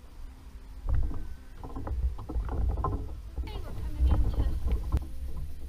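Knocks, bumps and clatter of a Hobie plastic kayak and its gear being handled alongside a dock, over a low rumble. The noise starts about a second in.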